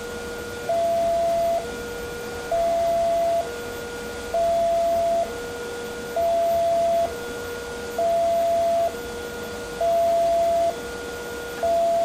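Level-crossing warning alarm: an electronic two-tone signal that alternates steadily between a lower note and a louder higher note, each held just under a second. It warns that a train is approaching while the barrier closes the road.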